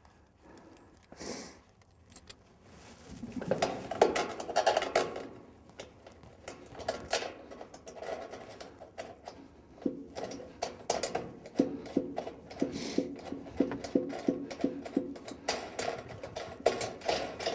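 Metal clicking and clattering as the J-bolts holding a truck toolbox to the bed rail are fitted and tightened down, with quick runs of clicks through the second half.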